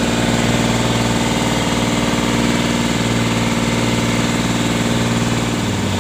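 Engine of a motorized outrigger boat running steadily under way, a loud continuous drone, with water rushing and splashing along the hull.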